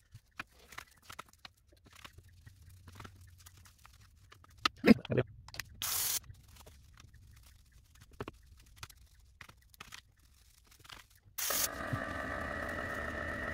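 Plastic cling wrap crinkling in small crackles as it is pressed onto and peeled off a painted wooden lure, with a sharp knock about five seconds in. An airbrush gives two short hisses of spray, the second followed by a steady pitched hum that cuts off suddenly at the end.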